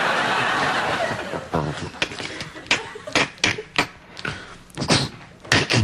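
Studio audience applause fading out over the first second and a half. Then a man makes short vocal sound effects into a microphone: a string of sharp clicks and pops with a few brief voiced noises.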